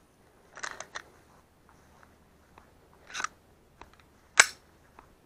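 Mechanical clicks and rustles from handling a Glock 20 pistol, ending in one sharp click about four and a half seconds in: the striker falling on a round that does not fire, a light primer strike.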